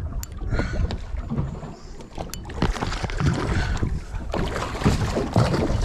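Wind buffeting the microphone on an open boat at sea: an uneven, gusty low rumble, with two sharp clicks, one near the start and one about two seconds in.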